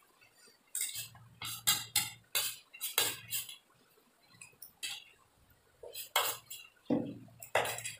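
Metal spoons and forks scraping and clinking against ceramic plates of noodles, in two clusters of quick clicks with a quieter gap between.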